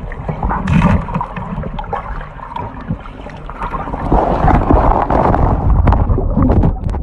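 Muffled gurgling and knocking of water, heard through a microphone held under water, with a heavy low rumble. It grows louder about four seconds in.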